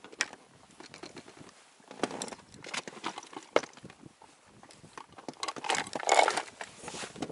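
Choppy water slapping and lapping against the side of an inflatable boat in irregular knocks and splashes. The slaps come thickest about two seconds in and again around six seconds in.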